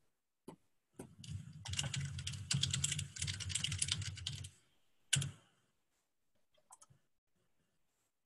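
Fast typing on a computer keyboard for about three and a half seconds, then a single louder key press and a couple of faint taps.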